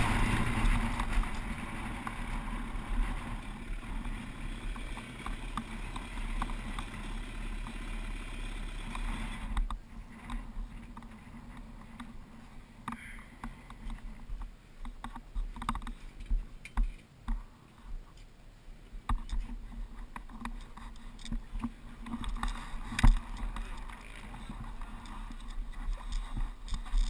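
Pit bike engine running at low speed as the bike rolls in over dirt, the sound dropping sharply about nine seconds in; after that, scattered light knocks and clicks.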